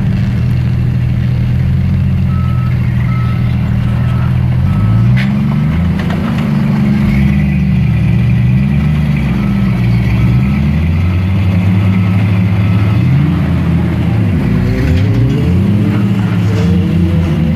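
Jeep Cherokee XJ engine working against boulders, revving up and falling back several times as it crawls. A reversing alarm beeps steadily in two spells, in the first third and the middle.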